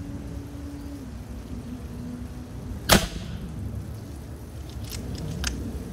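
A single shot from a Macavity Arms MA2 .30-calibre PCP air rifle: one sharp crack about three seconds in, a full-power shot that the chronograph clocks at 847 feet per second. Two much fainter clicks follow near the end.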